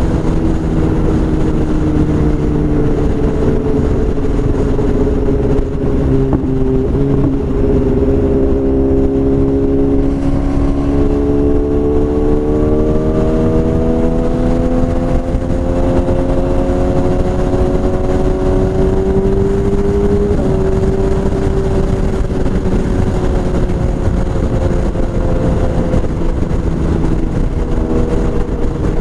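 BMW S1000RR inline-four engine running through a full Akrapovič exhaust, its note slowly falling, then climbing from about ten seconds in, with a sudden drop about twenty seconds in.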